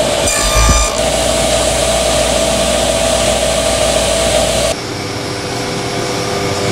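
Table saw running as it rips a strip of MDF: a loud, steady whine with one strong tone. About five seconds in it gives way to a quieter steady hum.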